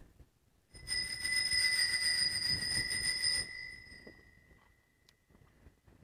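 Altar bells shaken for about three seconds, then stopping abruptly, with one ringing tone fading away over the next couple of seconds; they are rung at the priest's communion during Mass.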